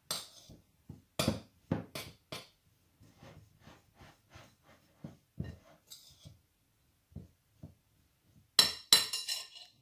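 A utensil clinking and knocking against a ceramic mixing bowl while stirring a mashed chickpea falafel mixture, in irregular taps, with a louder flurry of clinks near the end.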